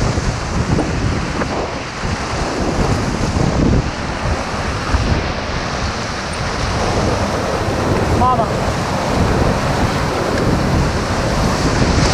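River whitewater rushing steadily over rapids, with wind buffeting the microphone. A brief high chirp about eight seconds in.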